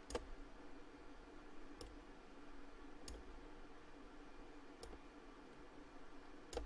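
Computer mouse clicking, about five single clicks spaced out unevenly, over a faint steady hum.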